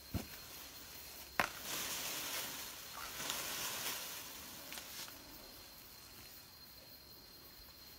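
An elephant working a coconut palm with its trunk: a dull thump and a sharp knock, then about three seconds of rustling, with a couple of light clicks near the end.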